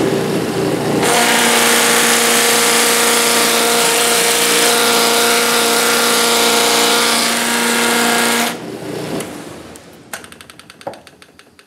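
Electric bench motor spinning a Sand-O-Flex flap sanding wheel, its new 320-grit abrasive flaps rasping loudly against a scrap of wood that is held to it to wear down the sharp grit, over a steady motor hum. About eight and a half seconds in the sound drops away as the wheel is switched off and slows, with a few faint ticks near the end.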